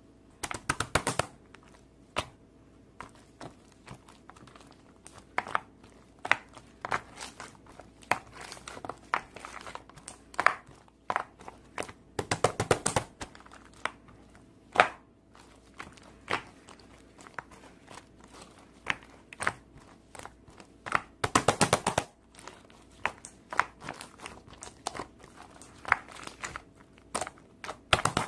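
Slime being squished and pressed by hand: irregular sticky clicks, pops and crackling, with denser bursts of crackling about a second in, near the middle, and about three quarters of the way through.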